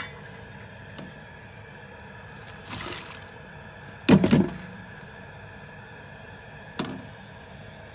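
Kitchen items being handled on a counter while soup ingredients are laid out: a brief rustle about three seconds in, a louder knock a little after four seconds, and a light tap near seven seconds, over a steady low hum.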